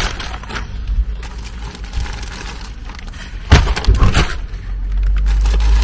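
Groceries being handled and loaded from a shopping cart into a car: plastic-wrapped bread bags rustling, with a few knocks as items are set down, the loudest about three and a half seconds in. A low steady rumble grows near the end.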